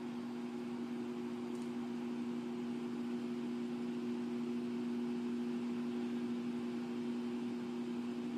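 A steady hum of two held low tones over a constant hiss, unchanging throughout.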